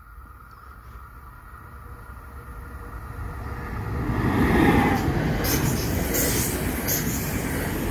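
A train approaching and running past on the tracks. The rumble builds over the first few seconds, peaks about halfway through, then stays loud with a repeated rattle of wheels on the rails.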